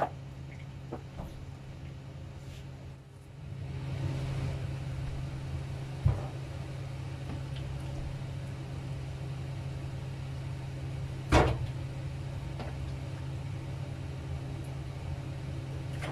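A steady low hum, like a small motor running, that gets louder about three and a half seconds in, with a knock about six seconds in and a louder knock a little after eleven seconds, as things are handled at a stainless kitchen sink.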